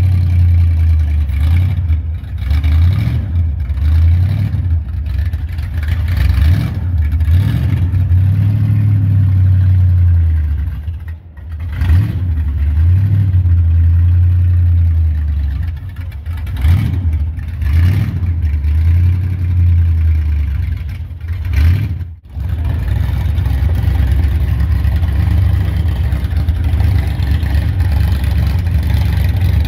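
Custom 1942 Ford pickup's engine revved in a series of short blips, then settling to a steady idle for the last seven seconds or so.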